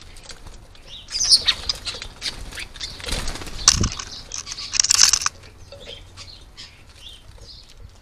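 European starlings flapping their wings as they hover at and land on a hanging plastic bird feeder, with scrabbling and knocks against the feeder. The flapping comes in three bursts, about a second in, around three to four seconds with a low thump, and around five seconds.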